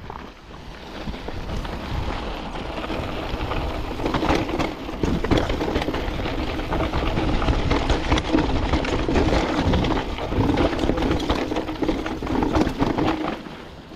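Canyon Spectral AL 6.0 mountain bike riding a dusty, rocky trail: tyres rolling over loose gravel and stones with dense chain and frame rattle. It gets louder about four seconds in.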